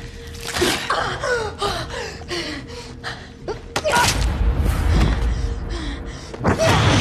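A woman gasping and crying out in pain over a dramatic music score, with a deep rumbling swell and thuds from about halfway through.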